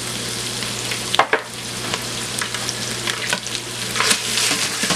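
Chopped onions and celery sizzling in bacon grease in an Instant Pot's stainless steel inner pot as they sweat, with a steady frying hiss. A wooden spatula stirring them knocks and scrapes against the pot a few times, loudest about a second in.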